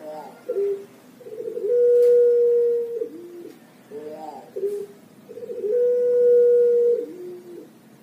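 Puter pelung, a Javanese ringneck dove, cooing twice. Each call is a few quick broken notes, then one long steady note held for about a second, then a short lower note.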